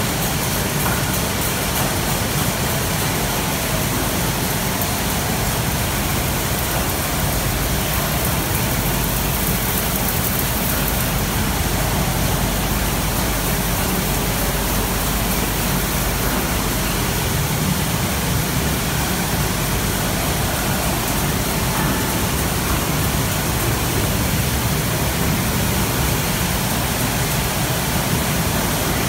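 Steady machinery noise of a Marel/Stork Nuova poultry evisceration line running at full speed, its overhead shackle conveyor and eviscerating carousel in motion.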